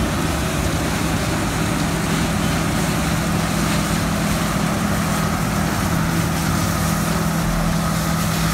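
John Deere combine harvester running close by while cutting soybeans: its engine and threshing machinery give a steady drone with a low hum that holds one even level.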